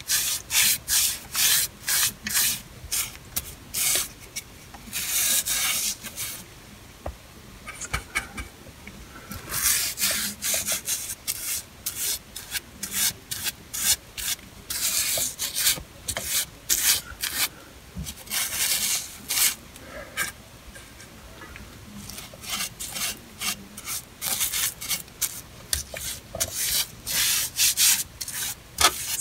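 Foam brush scrubbing oil-based primer onto a rough, rusty cast iron drain pipe: runs of quick scratchy brush strokes, several a second, with a couple of short pauses.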